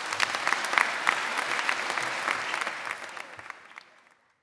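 Audience applauding, the clapping thinning out near the end and then cutting off.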